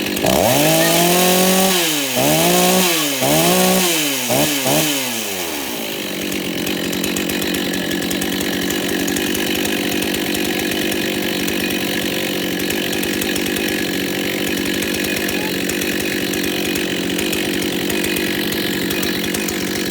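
John Deere CS62 two-stroke chainsaw revved four times, its pitch rising and falling with each blip of the throttle. It then settles to a steady idle for the rest of the time, running again after being repaired.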